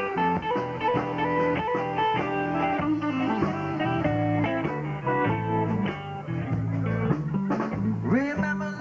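Live blues band playing an instrumental passage: electric guitar lines over bass and drums.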